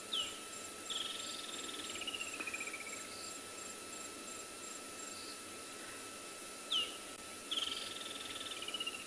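Bushveld ambience of insects: one steady high note, and a fast pulsing one that stops about halfway. Over it a bird sings the same phrase twice, a sharp downward-swept note followed by a trill that steps down in pitch.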